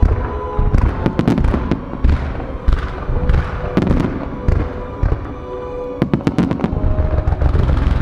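Fireworks finale: a dense barrage of aerial shell bursts, many sharp reports close together over a continuous low rumble, with a thick cluster of reports about six seconds in. Music plays underneath the bursts.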